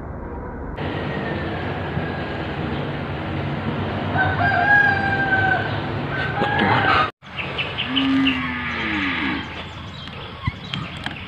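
Steady outdoor background noise with animal calls: a held, pitched call around the middle and a few low falling calls a little later.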